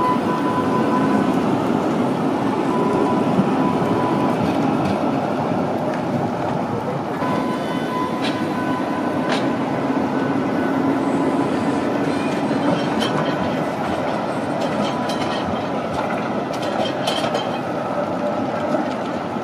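Articulated electric street tram passing close at low speed: a steady rumble of wheels on rail, with a few sharp clicks about eight and nine seconds in, easing off slightly as it moves away.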